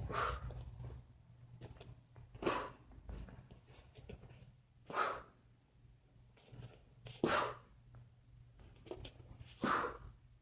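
Five short, sharp breath exhalations about two and a half seconds apart, one forced out with each block or punch of a taekwondo form, over a faint low hum.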